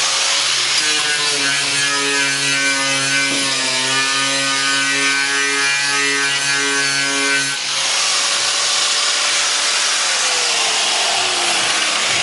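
Electric Makita angle grinder running a stringer bead (knotted wire) wheel, scouring heavy undercoating off car underbody sheet metal down to bare metal: a loud, harsh scraping hiss over a steady motor whine. Near the end the whine slides down in pitch.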